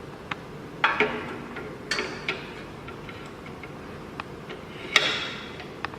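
Scattered metal clicks and clinks, some with a short ring, as a tubular key clamp is fitted into a CNC key cutting machine. The loudest come about a second in and near the five-second mark.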